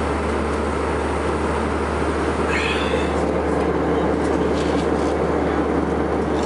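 Steady cabin drone of an Airbus airliner in flight, the engines and rushing air heard inside the passenger cabin at a window seat. A brief faint higher sound comes about two and a half seconds in.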